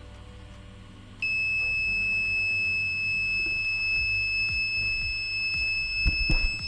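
Prusa i3 MK2 3D printer's buzzer sounding one continuous high-pitched beep that switches on about a second in: an error alarm set off by a false hotend temperature reading, which the owner puts down to a faulty temperature sensor.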